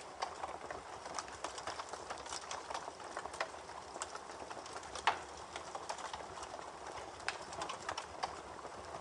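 Rain falling, heard as a soft steady hiss with many irregular sharp drips and taps.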